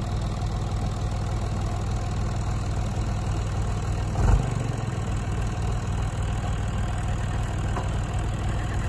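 John Deere 2155 tractor's three-cylinder diesel engine idling steadily, with one brief low thump about four seconds in.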